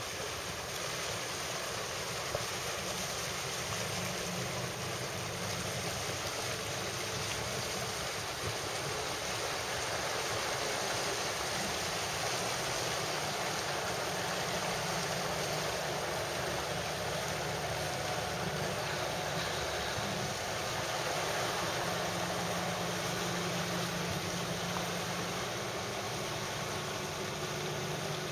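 Motor yacht under way: a steady low engine drone beneath a constant rush of water and wind noise.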